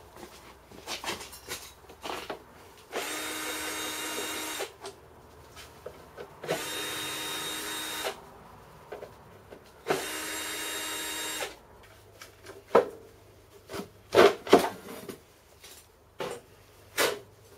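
Cordless drill driver running in three short bursts of about a second and a half each, backing out the screws of a plasma cutter's sheet-metal side panel; then a series of clicks and knocks as the loosened screws and panel are handled.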